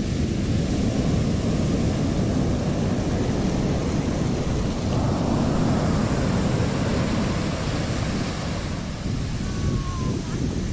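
Surf and wind buffeting the microphone in a steady low rush, swelling about halfway through as a shallow wash of seawater sweeps over the sand.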